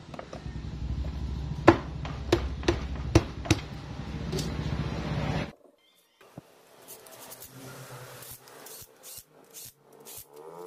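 Sharp metal knocks and clicks as the magneto cover is pushed and tapped onto the motorcycle engine case, over a low steady hum. The sound cuts off about halfway through, then quieter repeated clicking follows.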